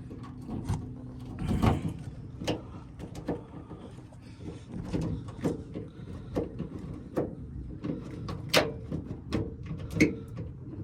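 Irregular clicks and knocks from a Toyota Tundra tailgate lock as a key is worked back and forth in the cylinder and the latch linkage moves. The lock is sticking, which the owner puts down to a corroded part inside.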